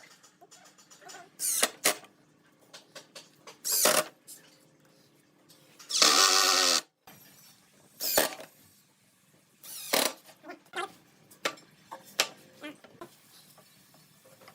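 Woodworking shop sounds: a handheld power tool runs briefly about six seconds in, with scattered knocks and clicks of wood and tools being handled.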